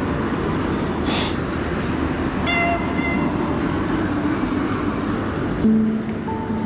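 Busy city street ambience: a steady rumble of traffic with a brief hiss about a second in and a few short high tones a little later. Music begins near the end.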